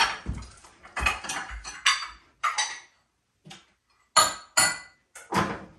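Kitchen pots and utensils clattering and clinking as they are handled at the stove: about eight separate sharp knocks, several with a short metallic ring.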